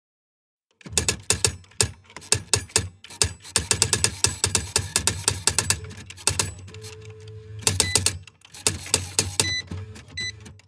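Electric typewriter being typed on: quick, irregular keystroke clacks over the steady hum of its running motor, which switches on about a second in. The typing thins out briefly around seven seconds, when a short steady tone sounds, then picks up again.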